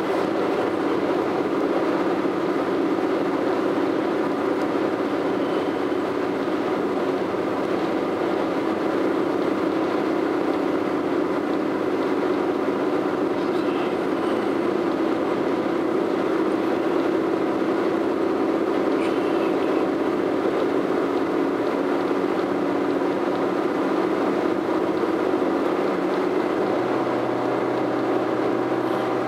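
Steady road and tyre noise with engine hum inside a moving car. A low hum joins near the end.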